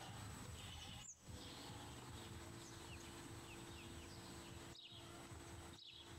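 Faint outdoor ambience: a low steady background rumble with a few short, high bird chirps about halfway through.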